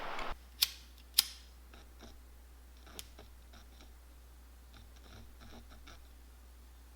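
Two sharp clicks about half a second apart, a third about two seconds later, then faint light ticks and taps.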